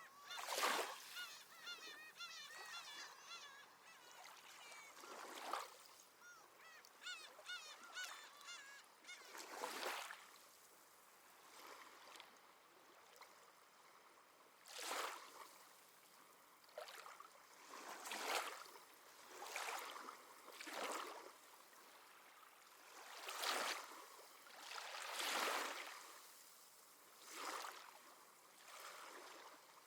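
Small waves washing in one after another, a soft rushing swell every few seconds. Seabirds call in a busy run of quick, high, wavering cries during the first third, then only the waves remain.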